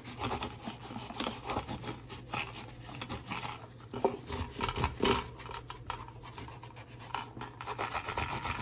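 An AR-15 magazine being wiped down with alcohol before wrapping: quick, irregular rubbing and scrubbing strokes against the magazine body.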